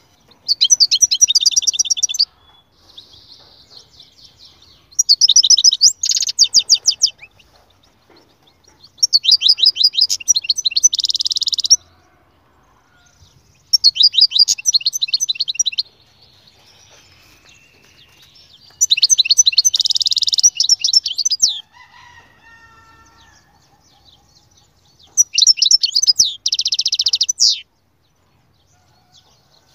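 European goldfinch singing: six loud phrases of fast, tinkling twitters and trills, each two to three seconds long, with quieter twittering in the gaps.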